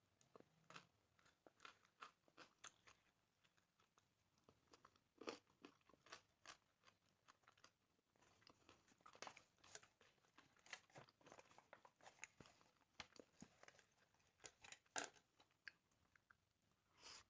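Grilled chicken being torn apart by hand in an aluminium foil tray and eaten: many short, irregular crunches and clicks of tearing meat and crinkling foil, with chewing.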